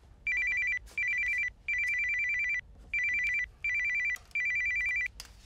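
Electronic telephone ringtone: a rapid warble between two high pitches, sounding in a short-short-long pattern that repeats twice.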